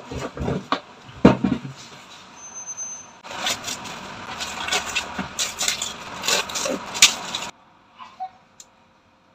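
A few knocks and rustles as packaged groceries are handled over a stainless-steel sink, then plastic cling film crinkling and crackling for about four seconds as oyster mushrooms are unwrapped from their tray. It stops abruptly, leaving a couple of faint taps.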